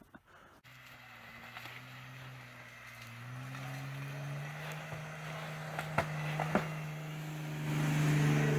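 A motor vehicle's engine running at a steady pitch, growing gradually louder, with two sharp clicks about six seconds in.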